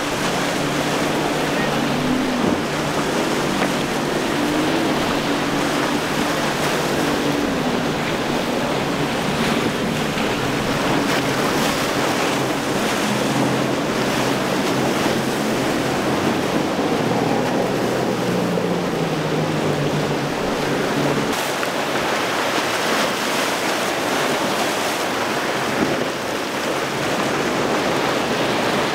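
Waves breaking and churning, with wind buffeting the microphone. Underneath, a boat's outboard motor hums with a wavering pitch, dropping away about two-thirds of the way through.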